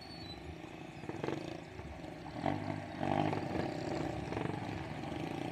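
Vehicle engine revving in traffic, its note swelling in several surges from about two and a half seconds in over a low steady rumble.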